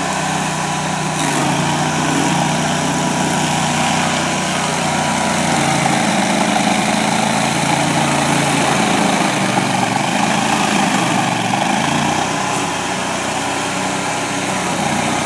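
Stump grinder's engine running steadily, its note dipping and recovering about two-thirds of the way through.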